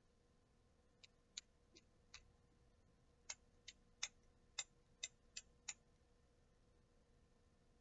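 About ten light, sharp clicks at uneven intervals, the small plastic sounds of a syringe and medication vial being handled while a dose is drawn up.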